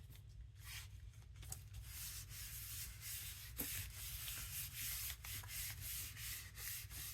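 Paper being rubbed and pressed down by hand, glued collage paper smoothed onto a paper journal cover: a quick run of papery rubbing strokes, several a second, growing denser after the first couple of seconds.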